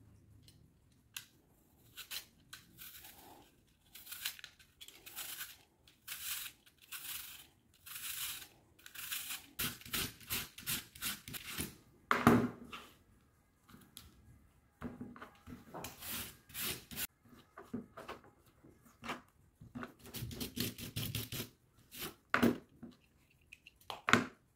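Julienne peeler rasping through a firm apple, cutting thin strips in repeated quick strokes, about one or two a second and in runs. A couple of louder knocks stand out, one near the middle and one near the end.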